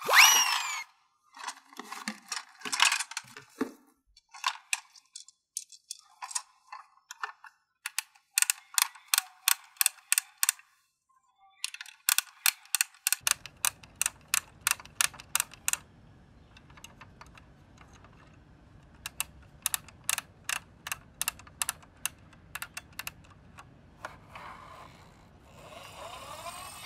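Trains of rapid plastic clicking from a toy tow truck's crane mechanism being worked by hand, a ratchet-like rattle of about five clicks a second in bursts with pauses. A few short sliding tonal sound effects come at the very start.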